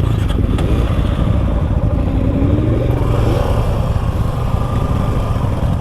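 Suzuki V-Strom 250 SX motorcycle engine running under way on a trail, a steady low rumble with a brief rise and fall in pitch about two to three seconds in.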